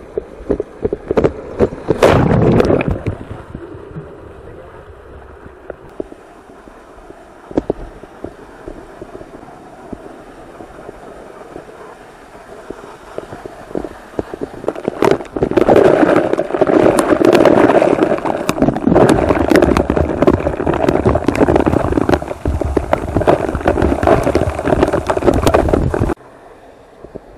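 Rushing waterfall water and spray striking a helmet-mounted camera, heard up close as a dense, crackling noise. A loud burst comes about two seconds in, and the noise grows much louder about halfway through before it cuts off abruptly near the end.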